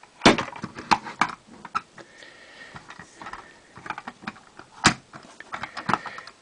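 Handling noise of a die-cast toy refuse truck: irregular clicks and knocks as it is turned over in the hand and set down on the tabletop, the loudest near the start and about five seconds in.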